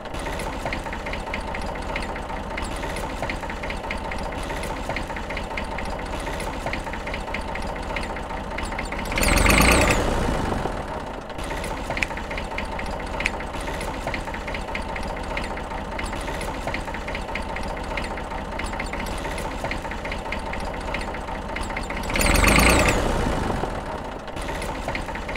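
Homemade miniature tractor running as it pulls its loaded trailer: a steady engine-like drone with a fast, even rattle, swelling louder for about a second twice.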